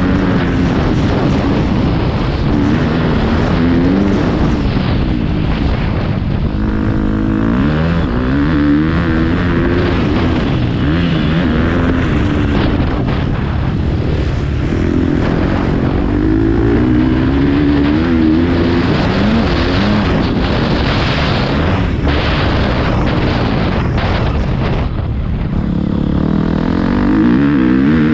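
Motocross bike engine heard up close from an onboard action camera. It revs up and backs off over and over, its pitch climbing and dropping through the gears around the track.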